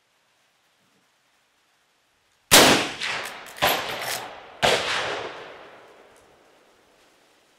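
Rifle shots from a Marlin 336 lever-action in .30-30: a loud report about two and a half seconds in, then two more sharp reports about a second apart, each trailing off in a long echo.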